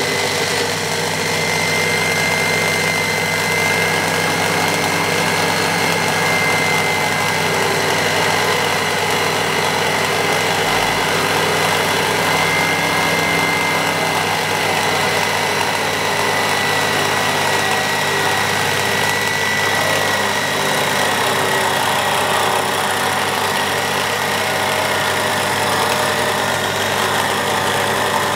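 Small benchtop milling machine running steadily with a high, even motor whine while its 10 mm end mill takes a light cut along a wooden rifle stock as the table is hand-fed.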